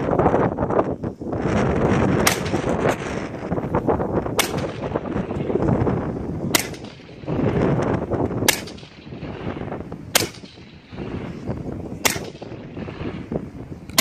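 Six rifle shots fired one at a time from a 5.56 short-barrelled rifle, at a steady pace about two seconds apart.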